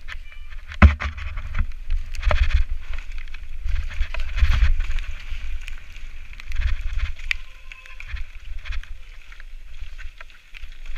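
Mountain bike ridden fast down a rough, rocky dirt trail: wind rumbling on the microphone, tyres rolling over dirt and rock, and the bike rattling and knocking over bumps. The loudest knock comes about a second in.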